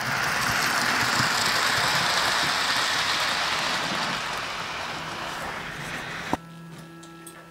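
GER S69 live-steam 00 gauge model locomotive running on the layout track, a steady rushing noise that slowly fades as it draws away. Just over six seconds in it cuts off with a click, leaving a faint steady hum.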